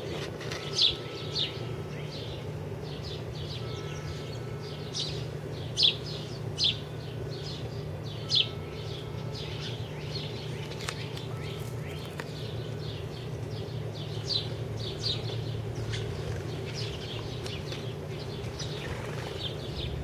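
Sparrows chirping over and over in short, sharp calls. Under them runs a steady low hum.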